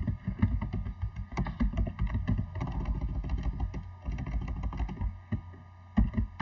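Computer keyboard keys clicking in quick runs of taps as a word is typed and partly deleted.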